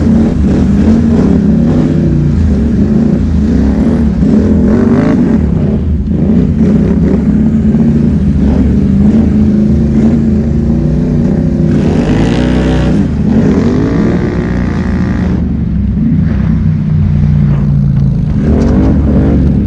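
ATV engine running under load on a dirt trail, its revs rising and falling as the throttle is worked, with a sharper rev about twelve seconds in.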